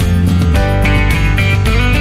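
Background music led by plucked and strummed guitar with a steady beat.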